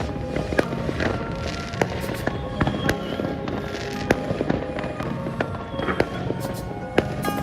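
Fireworks going off in sharp, irregular bangs, several a second at times, with a louder bang near the end, over background music.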